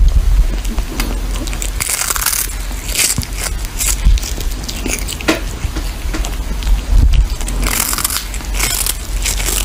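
Kitten chewing a small fish close up: irregular crunching and crackling bites, some louder than others.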